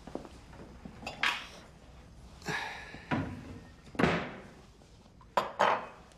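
Glass tumblers being handled and set down on a wooden desk: a string of knocks and clinks, with two sharp ones close together near the end.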